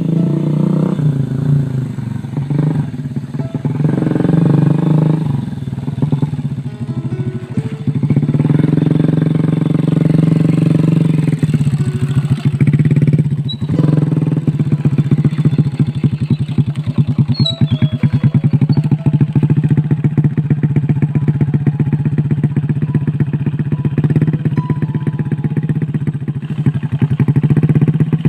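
Small motorcycle engine running under load. Its pitch rises and falls over the first several seconds, then it runs steadily.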